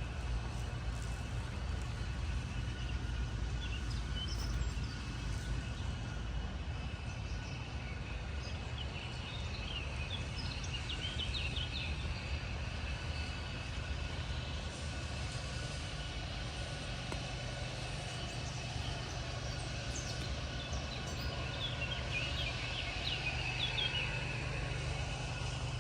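Outdoor ambience with a steady low rumble and birds chirping in two brief flurries, about a third of the way in and again near the end.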